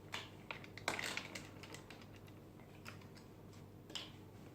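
Faint scattered clicks and light taps of small plastic toy pieces being handled and moved aside, a few together near the start and one more near the end.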